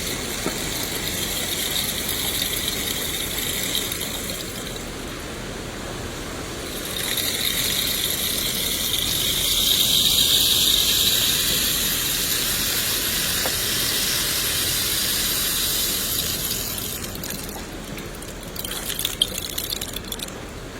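Steady rainfall: a continuous hiss of rain that swells louder through the middle and eases toward the end, with a few sharp taps shortly before the end.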